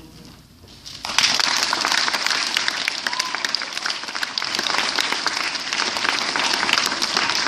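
Audience of schoolchildren applauding: after a short hush, a burst of clapping starts about a second in and keeps going strongly.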